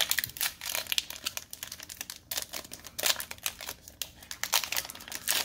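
Foil trading-card pack wrapper crinkling and tearing as hands pull it open: a dense run of rapid, irregular crackles.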